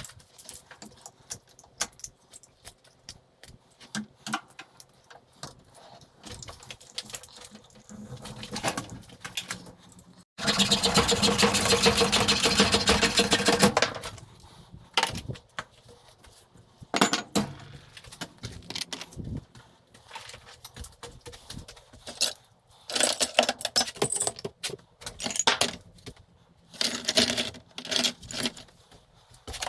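Small pieces of scrap metal clinking and rattling as they are handled, with scattered clicks and clinks throughout. A loud, dense burst starts suddenly about ten seconds in and stops about three and a half seconds later.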